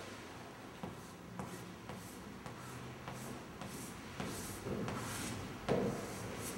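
Handwriting with a pen: a series of short scratchy strokes of the tip across the writing surface as a single kanji character is written out.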